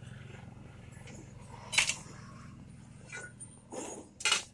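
Hammer blows on a steel leaf-spring leaf from a Bolero pickup, held upright on an anvil post: about four sharp metallic strikes, the loudest about two seconds in. A low steady hum runs underneath and stops a little after three seconds.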